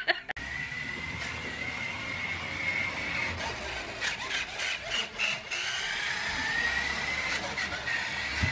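Small electric motor and gears of a battery-powered toy dump truck whining steadily and high as it drives, the pitch wavering a little with its speed, with a few sharp clicks partway through.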